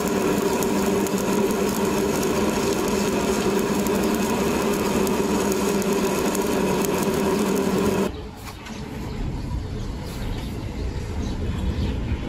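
Stick-welding arc crackling and sizzling steadily with a steady hum as a vertical bead is laid with a flux-coated electrode. The arc cuts off suddenly about eight seconds in, leaving a low background rumble.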